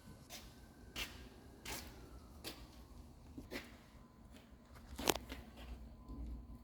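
Irregular sharp clicks and light knocks, about nine in all, the loudest about five seconds in, over a faint low hum.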